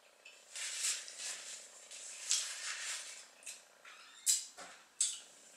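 Close-miked wet mouth sounds of eating rotisserie chicken and licking fingers: a run of short, moist smacks and slurps, with two sharp lip smacks about four and five seconds in.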